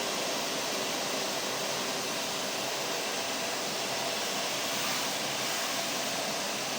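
Vacuum cleaner running continuously, a steady rushing hiss with a faint even whine and no change in pitch or level.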